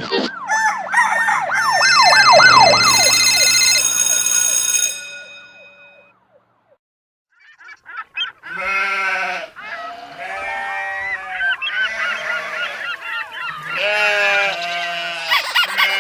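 Sound effects: a fast rising-and-falling siren-like wail over steady high electronic tones, fading out about five seconds in. After a brief silence comes a long run of short honking calls.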